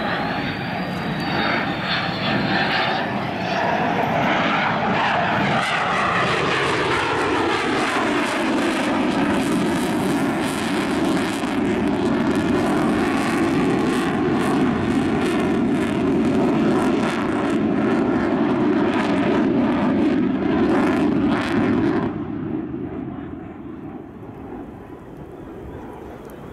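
Sukhoi Su-27's twin Saturn AL-31F turbofan jet engines passing in a low display flight. A whine falls in pitch as the jet goes by, then comes a loud, crackling rumble that drops off suddenly about 22 seconds in and fades.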